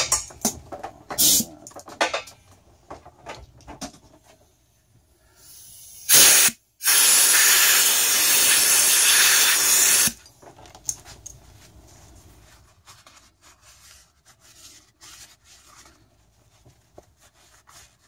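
Compressed air blown through a turbocharger housing to clear out the last of the gunk: a short blast about six seconds in, then a longer blast of about three seconds. Light clicks and knocks of the metal part being handled come before and after.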